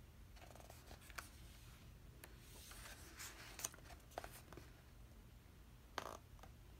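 Faint rustling and soft ticks of a photo book's pages being handled and turned, with a sharper tick about six seconds in.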